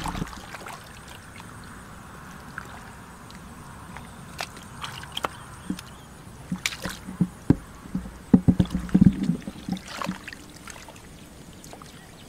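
Hands splashing and squelching in shallow muddy water, a string of irregular sloshes and splashes that bunch together about two thirds of the way in.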